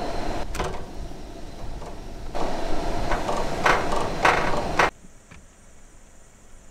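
Pancakes sizzling on a camp-stove griddle, with a silicone spatula scraping and knocking on the griddle as a pancake is flipped; a few short scrapes come close together before the sound cuts off suddenly, leaving a faint hush.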